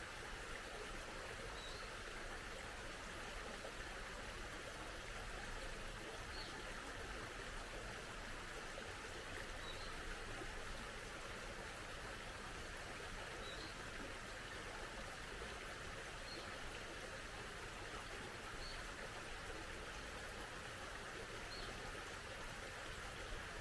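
Small mountain stream flowing steadily. A bird gives a short, high chirp every few seconds.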